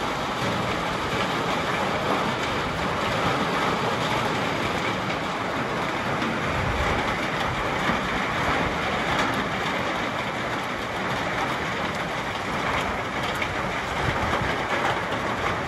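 Steady rain falling over rooftops and trees, an even hiss, with occasional drops ticking as water drips off the roof edge.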